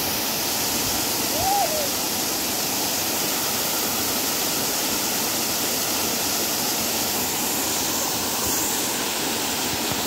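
Waterfall pouring over rock into a shallow pool: a steady, even rush of water.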